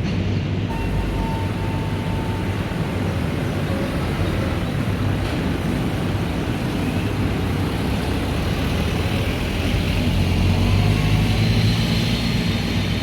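Steady mechanical running noise with a low hum, rising a little near the end.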